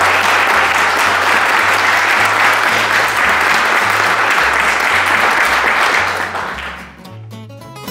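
A group of people applauding steadily, fading out about six and a half seconds in, over background music with a low bass line. Guitar music is left on its own near the end.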